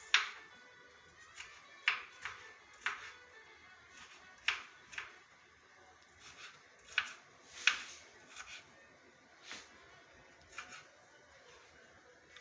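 Kitchen knife chopping onion finely on a cutting board: sharp, irregular strikes about one a second. Faint background music runs underneath.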